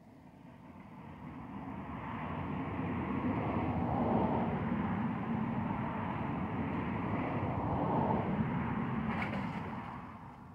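A motor vehicle passing by: a rumble that swells over the first few seconds, holds, then fades away near the end.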